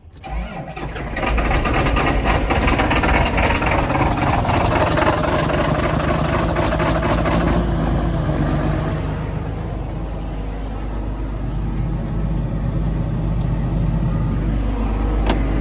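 Farm tractor's diesel engine starting up and running under load. It is louder and rattlier for the first several seconds, then settles into a steadier run.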